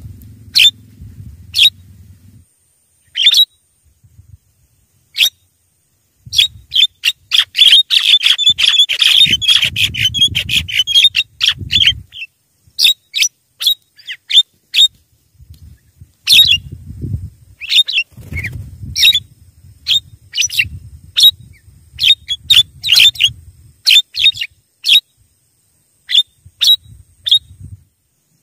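Javan mynas (jalak kebo) calling: short, sharp notes repeated in irregular bursts, with a dense stretch of rapid chattering from about six to twelve seconds in.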